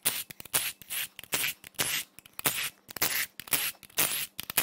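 Bolts being worked loose and out of the black plastic valve cover of a 2.7 L EcoBoost V6: a run of short rasping scrapes, about two a second.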